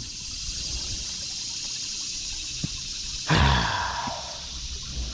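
A man's heavy sigh about three seconds in, breathy with a falling pitch that trails off over about a second. A steady high-pitched hiss sits under it throughout.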